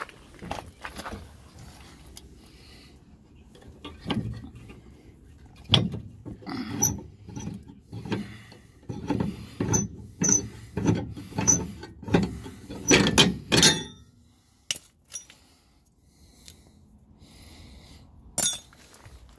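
Irregular clanks and knocks of metal hardware being handled under the back of a pickup truck, some with short high squeaks, coming roughly one or two a second. They stop well before the end, leaving one more click near the end.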